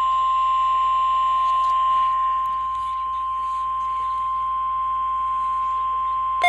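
NOAA Weather Radio's 1050 Hz warning alarm tone: a single steady high tone held without a break. It is the attention signal that comes before a tornado watch broadcast.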